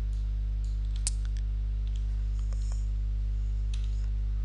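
Steady low electrical hum in the recording, with a few faint computer mouse and keyboard clicks; the sharpest click comes about a second in.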